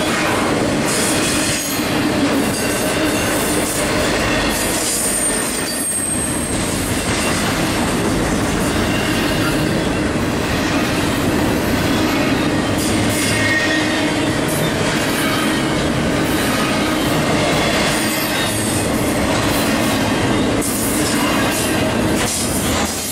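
Double-stack intermodal well cars rolling slowly past close by: steady rumble and clatter of steel wheels on the rails, with a couple of brief thin wheel squeals.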